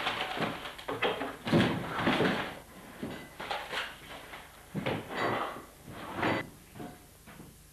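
A series of irregular bumps and rustles from a person moving about close to the microphone, thinning out and fading near the end.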